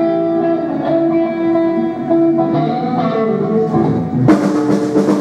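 Background music: a melody of long held guitar notes, with a drum kit coming in about four seconds in.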